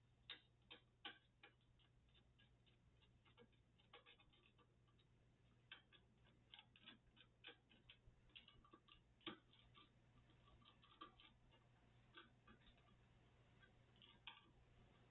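Near silence with faint, irregular clicks and taps from small computer parts being handled.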